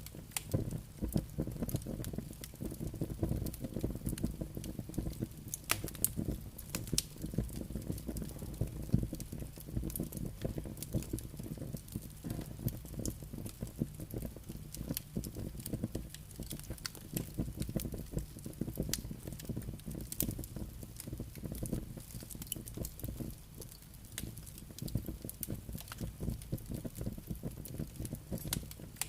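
Campfire crackling, with frequent irregular sharp pops and snaps over a steady low rumble of flames and wind.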